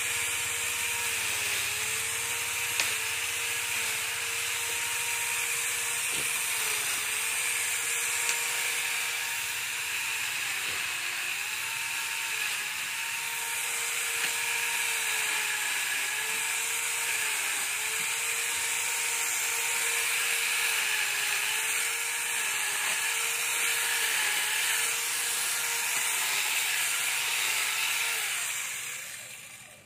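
Small chainsaw running with a steady whine, its pitch dipping briefly again and again as the chain bites into green branches. It stops just before the end.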